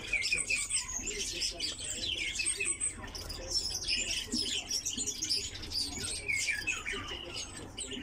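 Small songbirds chirping and twittering continuously, many quick high chirps and short trills overlapping.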